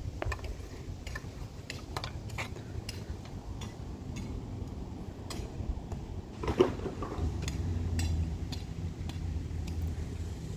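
Irregular light metallic clinks and clicks, with one louder knock a little past the middle; a low engine hum comes in soon after and carries on.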